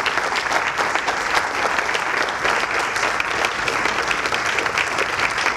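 Audience applauding, a steady dense clapping from a roomful of people.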